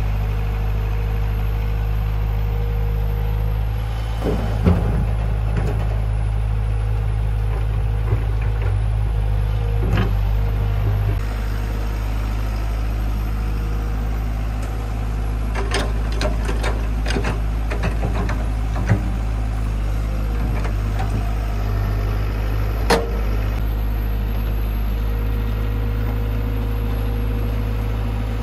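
A diesel engine of heavy machinery running steadily at idle, with a few sharp metallic knocks and a run of clicks and clanks about two-thirds of the way through.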